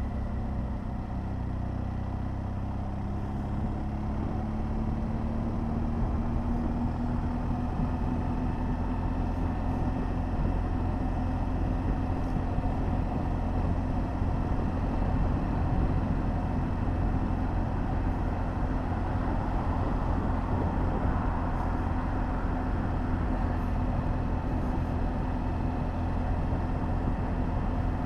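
BMW R 1200 GS Adventure motorcycle's flat-twin engine running at low road speed under wind and road noise, its pitch rising over the first several seconds as the bike picks up speed, then holding steady while cruising.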